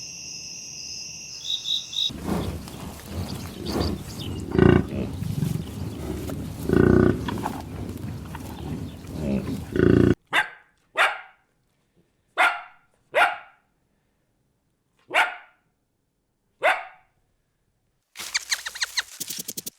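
A dog barking. First comes a busy stretch of overlapping calls, then about seven short single barks a second or so apart, each dropping in pitch. A quick rattling series follows near the end.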